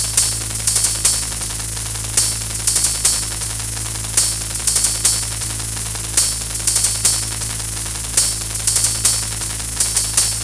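Industrial drone track from hardware synthesizers and drum machines: a steady low bass drone under rhythmic bursts of bright, hissing noise that repeat in a pattern about every two seconds.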